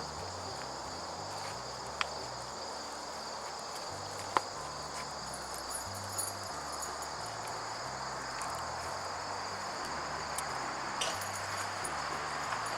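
Steady high-pitched chirring of insects outdoors, with a couple of sharp clicks about two and four seconds in.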